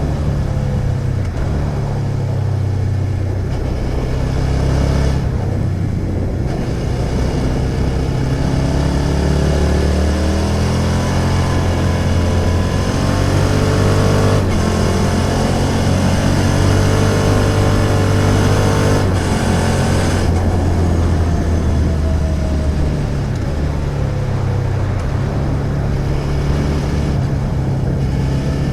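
Suzuki SV650 V-twin motorcycle engine running on the road; its pitch climbs as it accelerates in the middle, holds, then falls as it slows later on.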